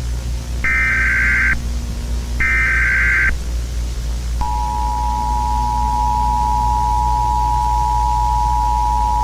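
Emergency Alert System SAME header: two short screeching digital data bursts about a second apart, the last of its three repeats. About four seconds in comes the steady two-tone EAS attention signal, a harsh held chord.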